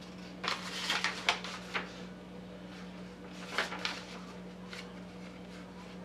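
A paper instruction sheet being unfolded and handled: two bursts of crinkling rustles, the first about half a second in and the second around three and a half seconds in, over a steady low hum.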